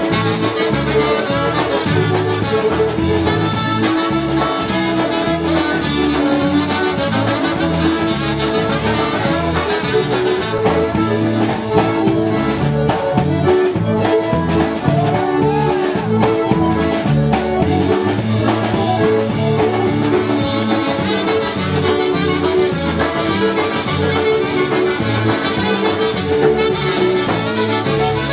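Live polka band playing an instrumental polka at a steady dance beat, led by the accordion with brass alongside.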